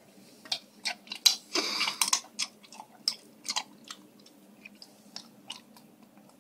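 Golden retriever chewing pistachios, cracking the shells: a run of sharp, irregular crunches, busiest in the first three and a half seconds and sparser after that.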